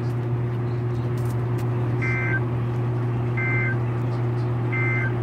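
Steady rain on a car with a low, even hum underneath. Three short electronic beeps sound about a second and a half apart in the second half.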